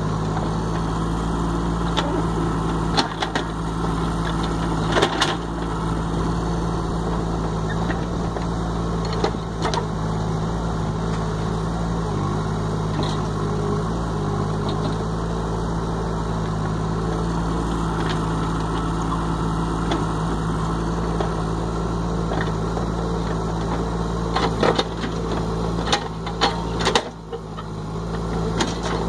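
A motor or engine running steadily at a constant pitch, with occasional sharp knocks and clicks, most of them near the end.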